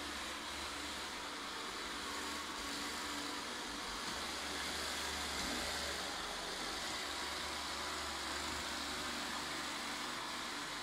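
Vorwerk VR200 robot vacuum cleaner running steadily as it drives across the floor: an even hiss with a low hum underneath.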